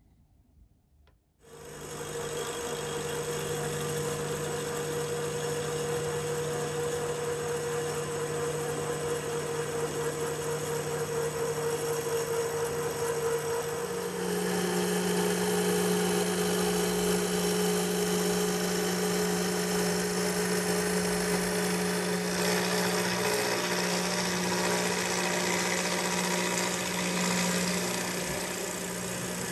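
Vertical milling machine running with a steady motor hum, starting about a second and a half in after near silence, as an end mill skims the bottom edge of the locomotive frames; the hum steps up slightly in pitch about halfway through.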